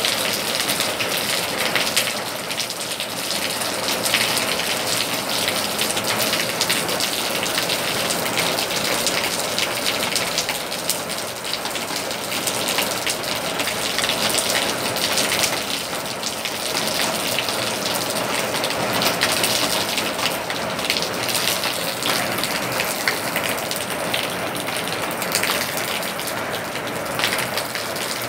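A rain shower falling steadily: a dense, even hiss of raindrops hitting the ground, road and leaves.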